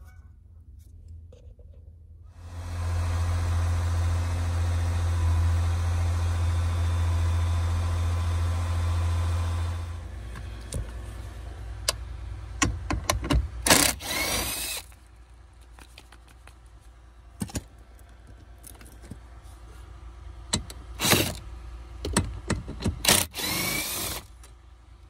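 A steady machine hum with a strong low drone runs for about seven seconds and stops abruptly. Then a cordless power driver whirs in short runs, about three times, with clicks and rattles between, taking out the lower dash panel's screws and bolts.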